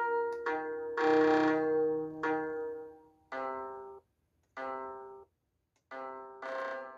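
Slow instrumental score of single sustained notes, each starting sharply and fading away. After a few seconds the notes thin out, with short silences between them.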